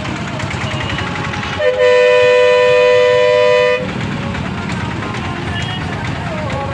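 A vehicle horn in jammed traffic sounds one steady two-pitched note for about two seconds, a little after the start. Throughout, engines idle and traffic rumbles.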